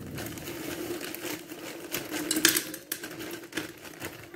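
Small clicks and rattles of kitchen handling over a steady low hum.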